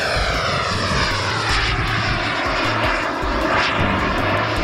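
210-size model jet turbine on an RC delta-wing jet running at power in flight, a loud steady rushing whine. Its several pitched tones glide downward as the jet flies past and away.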